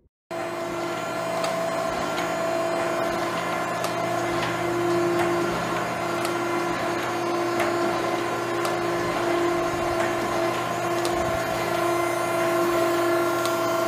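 Steady hum and whine of running industrial machinery: a constant pitched tone over an even mechanical noise, with a few faint ticks.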